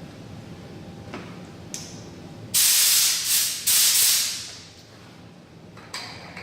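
Compressed air let out of the air hose in two bursts of loud hiss, each starting abruptly and lasting about a second, one right after the other, about two and a half seconds in.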